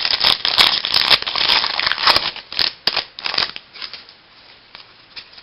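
A baseball card pack's wrapper being torn open and crinkled, with cards handled; the crinkling is dense for about three seconds, then gives way to a few faint clicks.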